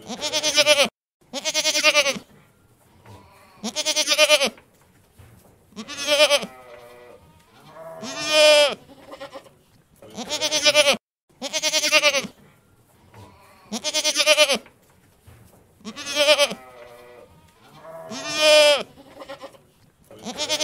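Goat bleating over and over, about ten loud quavering mehs, one every two seconds or so.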